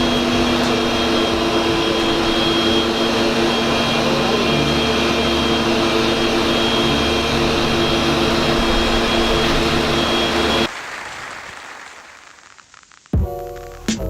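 A powered machine running steadily, a loud whooshing noise with a steady hum and whine, until it cuts off suddenly about ten and a half seconds in. Background music starts near the end.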